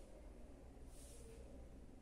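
Near silence: room tone with a low hum.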